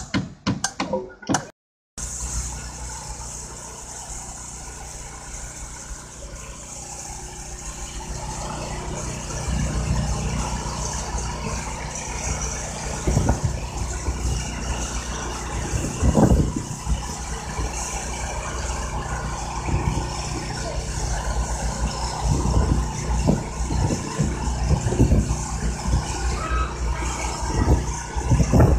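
Starting about two seconds in, a crane truck's engine running steadily, louder after about eight seconds, with rattling and a few knocks as the crane hoists a large gate valve.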